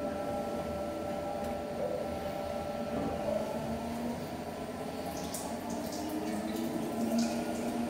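Commercial front-loading washing machine turning a load of sheepskins in brown tannin water: a steady motor hum with water sloshing in the drum. A few faint ticks come in the second half.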